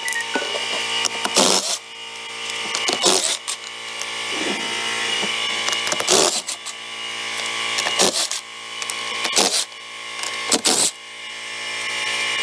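Sped-up sound of a ratchet and socket extension backing out the bolts of an aluminium SCS drop box cover: a fast, even mechanical buzz with a sharp clack about every second and a half.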